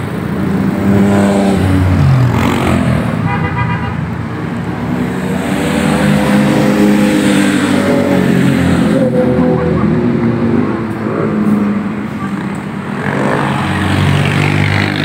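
Motorcycles and cars passing close by one after another, their engines rising and falling in pitch as each goes past, with a short horn toot about three seconds in.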